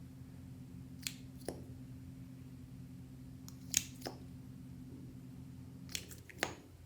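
Clear slime being worked by hand, making about six short sharp clicks and pops, over a steady low hum.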